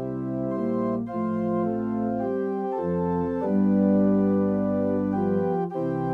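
Organ postlude: slow, sustained chords over a low bass line, the chords changing about every second.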